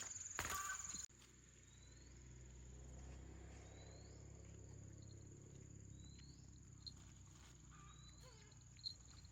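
Faint insect ambience: a steady high cricket-like trill with short rising chirps about every second and a half. It follows a brief burst of clattering noise in the first second that stops suddenly.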